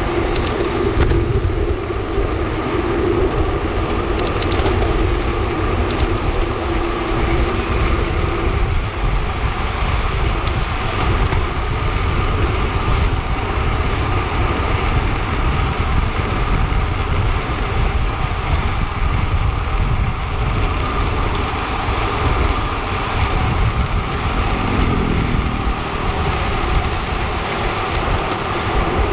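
Steady wind rushing over a bicycle-mounted camera's microphone at speed, over the hum of road-bike tyres on tarmac.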